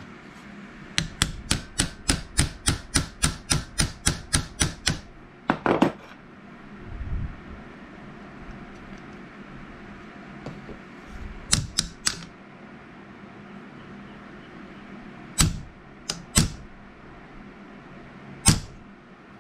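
Hammer tapping a pin punch to drive the old rivets out of a wooden knife handle. A quick run of light taps, about four a second, for some four seconds, then a few single and paired strikes spread apart.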